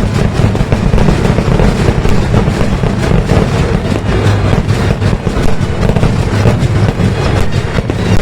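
A festival fireworks barrage: firecrackers going off in rapid, overlapping succession, a dense unbroken rattle of bangs.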